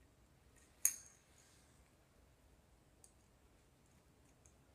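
A single sharp click with a brief high ring about a second in, then a faint tick about three seconds in: a screwdriver and a small plastic electrical switch being handled as a wire is screwed to the switch's terminal.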